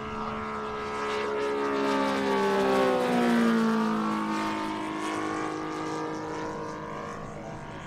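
Saito FG-90R3 three-cylinder four-stroke radial engine of a giant-scale RC model warbird flying past. The engine note grows louder and then drops in pitch as the plane passes, about three seconds in, then fades.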